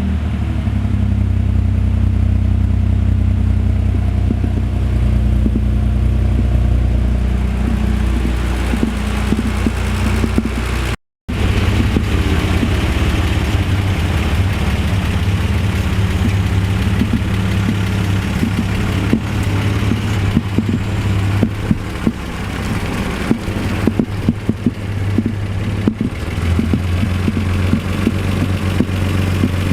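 BMW 7 Series engine running through its newly fitted exhaust: steady at first, then after a short break about 11 seconds in, running again with a denser layer of small clicks over the exhaust note. The owner says the engine runs well but has a noisy timing chain.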